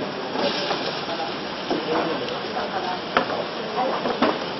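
Pumpkin cubes dropped into a hot pan on a gas burner, sizzling steadily, with a couple of sharp clicks near the end.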